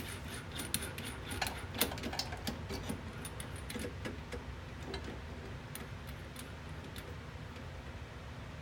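Light metallic clicks and rattles from a keyed drill-press chuck as a hole-saw arbor is fitted and the chuck is worked by hand and key, thickest in the first couple of seconds and thinning out later, over a steady low hum.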